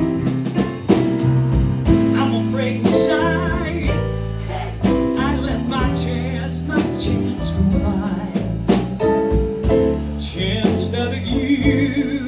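Small live band playing an instrumental break in a slow ballad: drums, bass guitar and keyboard, with a wavering lead melody over sustained chords.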